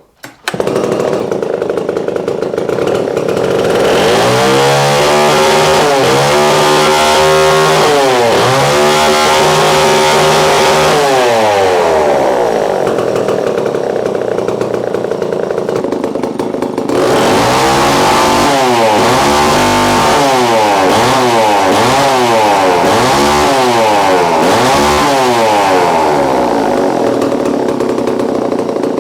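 Homelite Super 1050 Automatic two-stroke chainsaw running and being revved up and down repeatedly. It blips quickly in two spells, with steadier running between and after.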